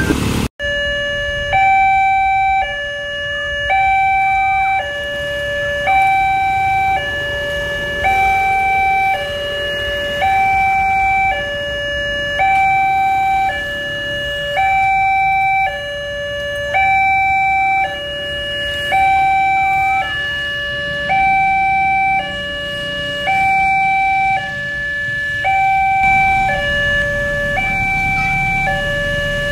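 Railway level-crossing warning alarm sounding: an electronic two-tone signal alternating between a higher and a lower tone, about a second each, the warning that a train is approaching and the barriers are closing.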